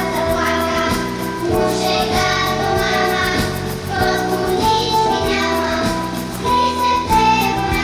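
A children's vocal ensemble singing together over an instrumental accompaniment with a steady beat.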